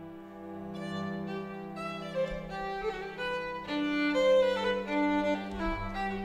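String ensemble playing a traditional Scandinavian fiddle tune on violins over a held low bowed drone. The violins come in about a second in, more parts join after about two seconds, and the music grows louder.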